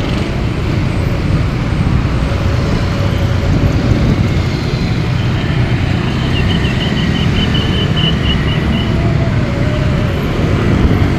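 Steady rumble of buses on the move, engine and road noise, with a faint high thin tone between about five and nine seconds in.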